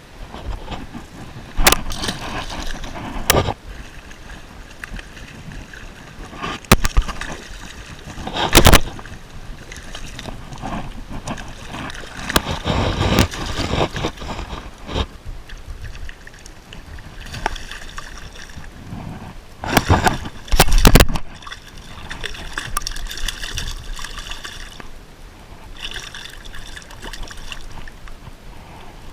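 Water sloshing and gurgling under an irregular run of handling noise, with several loud knocks and bumps, the loudest about twenty seconds in.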